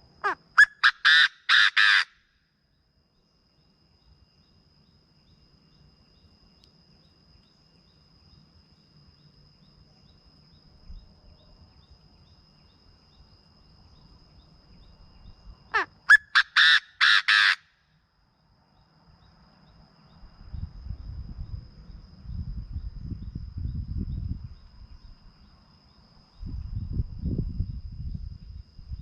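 Chinese francolin calling twice, about fifteen seconds apart. Each call is a loud, harsh phrase that opens with a quick upward slide and then runs about five clipped notes. Low rumbling noise fills the last third, with a faint steady high whine in the gaps between calls.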